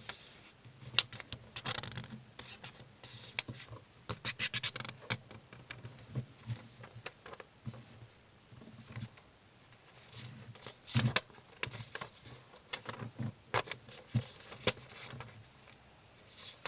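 A sheet of origami paper being folded in half and creased by hand: irregular rustles, taps and scraping strokes, with a quick run of scratchy strokes about four seconds in.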